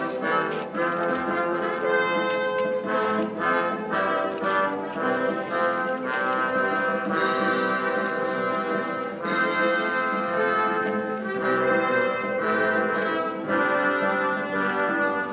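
Brass band music with held, changing chords, without a break.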